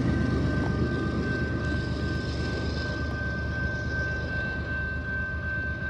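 Canadian Pacific freight train rolling past, a steady rumble of wheels on rail that slowly fades, with a thin, steady high-pitched squeal running over it.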